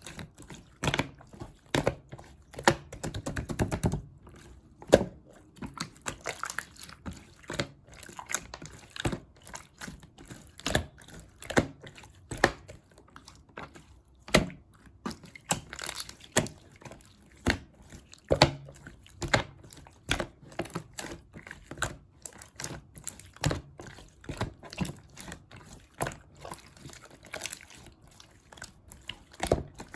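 Clear slime squished and pressed by hand, making irregular sticky pops and clicks, a few each second, with a denser stretch of squelching about two to four seconds in.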